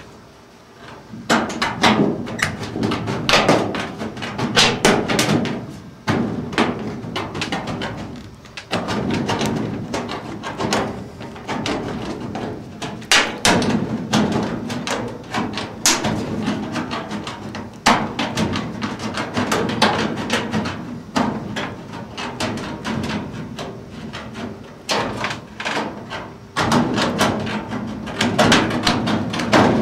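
Hand aviation snips cutting galvanized sheet-metal ductwork: a steady run of sharp crunching snips, with the thin steel sheet rattling and clanking as it is cut, broken by a few short pauses.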